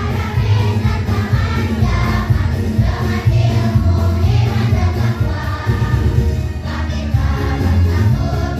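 A choir singing a school march over loud amplified backing music with a strong bass line.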